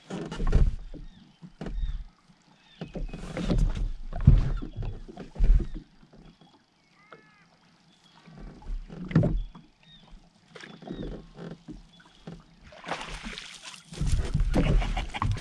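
Lake water sloshing and slapping against a jet ski's hull in irregular bursts while a trout is played on a spinning rod. A longer spell of splashing comes near the end as the fish is lifted out in a landing net.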